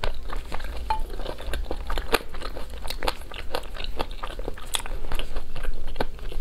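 Eating sauce-glazed chicken wings: an irregular, fast run of crisp crunches and wet clicks from biting and chewing.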